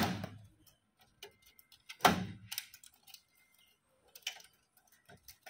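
Plastic wire-harness connectors being pulled from a copier's logic board: three sharp clicks about two seconds apart, with faint ticks of handling between them.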